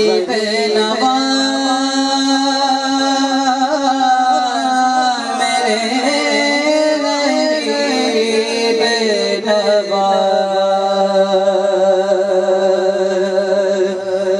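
Solo male voice singing an Urdu naat into a microphone, drawing out long held notes that bend and glide slowly in melisma, with no words broken out.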